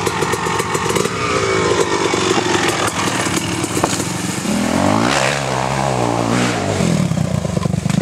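Dirt bike engine revving, its pitch rising and falling over and over, with sharp rises about five and six and a half seconds in.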